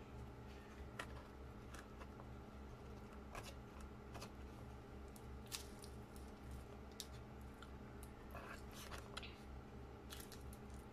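Scattered small crackles and clicks of a crisp roasted seaweed sheet being handled while baked sushi is forked onto it, over a steady low hum.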